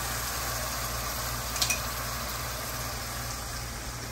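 Soffritto sizzling in a frying pan with a splash of white wine just added, as a steady hiss over a low hum, with one brief clink about one and a half seconds in.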